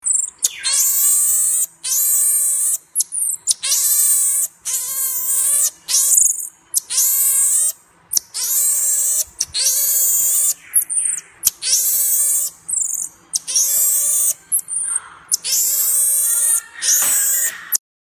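A marmoset calling over and over: about a dozen loud, warbling cries, each about a second long, with a few short, high chirps in between.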